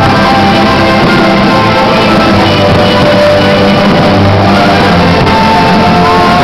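Loud rock music with guitar, played over the sound system at a fireworks show.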